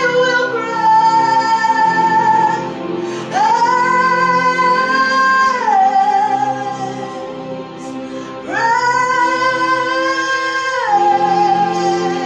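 A woman singing a slow worship song in long held notes, three phrases with brief gaps, over a steady accompaniment.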